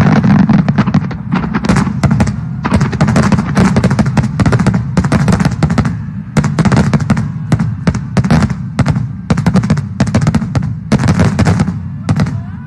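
Fireworks display: a rapid barrage of aerial shells bursting in overlapping booms, several sharp reports a second over a continuous low rumble. It stops suddenly near the end.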